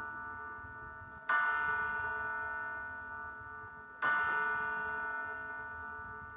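A bell tolling: struck twice, a little under three seconds apart, each stroke ringing on in many steady tones and slowly dying away, the last ring of an earlier stroke fading at the start.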